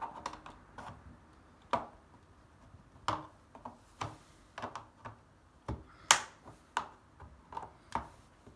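Irregular sharp clicks and light knocks of a screwdriver and the washer dryer door's plastic parts being worked apart, with one louder knock about six seconds in.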